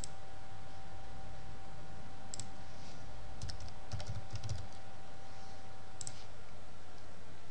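A few computer keyboard keystrokes typing a short word and scattered mouse clicks, sparse and sharp, over a steady faint hum and hiss.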